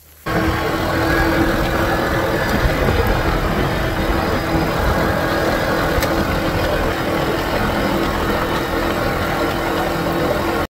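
Side-by-side UTV running steadily down a dirt road: engine drone with wind and road noise, heard from on board. It cuts in abruptly just after the start.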